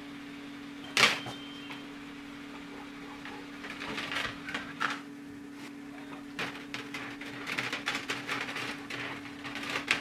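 Thin 1.2 mm copper capillary tube being wound by hand around a steel screwdriver shaft: a run of small irregular scrapes and clicks of copper against steel. There is a sharp click about a second in, over a steady low hum.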